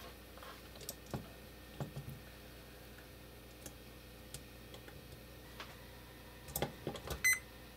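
Faint clicks and taps of multimeter test probes against a contactor's screw terminals, louder and closer together near the end. About seven seconds in, the meter's continuity beeper gives a very short, broken chirp as a probe makes contact across a contact leg.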